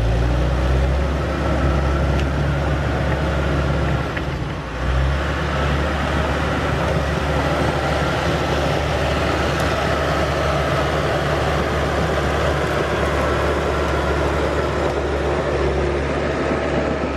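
Bulldozer diesel engine running steadily with a deep, even rumble, dipping briefly about four seconds in.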